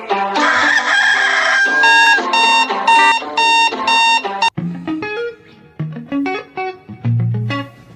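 A rooster crowing over background music, then an alarm clock beeping in quick repeated pulses, about three a second, for a couple of seconds. Light plucked guitar music takes over about halfway through.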